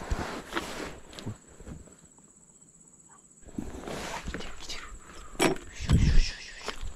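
Footsteps on river stones and clothing rustle as someone moves quickly in irregular bursts, with louder knocks and a heavy bump near the end. Crickets trill steadily underneath.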